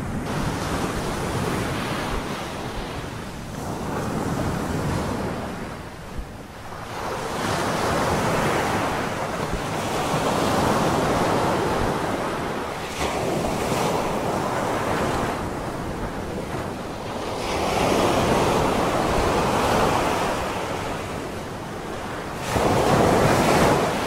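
Surf washing onto a sandy beach, swelling and fading every few seconds with a loud swell near the end, mixed with wind rumbling on the microphone.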